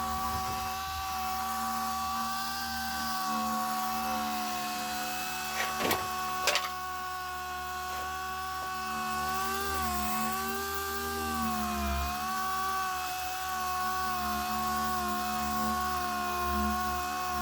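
Small electric power tool whining steadily as it sands down hardened body filler on a wheel's curb rash, its pitch dipping briefly under load. Two sharp clicks about six seconds in.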